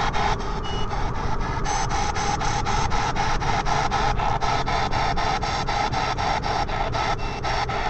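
P-SB7 spirit box sweeping the FM/AM radio bands: radio static chopped into rapid, even bursts, about five a second.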